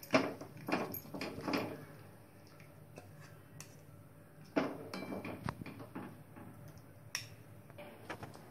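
A steel ladle clinking and scraping against a steel kadhai and a serving bowl as curry is ladled out: a few knocks in the first two seconds, another cluster about five seconds in, and a single click near the end.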